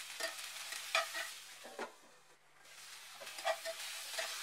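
Ivy gourd strips and chopped onions sizzling in a hot pan while they are stirred, with several sharp scrapes and knocks of the stirring utensil against the pan. The sizzle eases off briefly around the middle.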